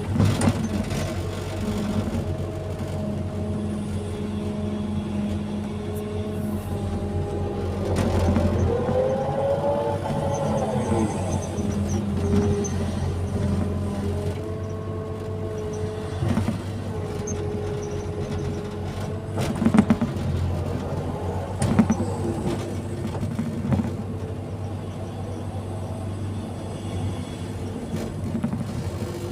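Hydraulic excavator working: its diesel engine runs steadily while the hydraulic whine rises and falls with the load, and a couple of sharp knocks come about two thirds of the way through.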